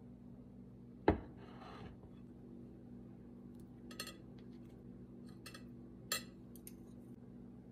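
A metal fork and chopsticks clink lightly against a ceramic plate several times. There is a louder knock about a second in, over a steady low hum.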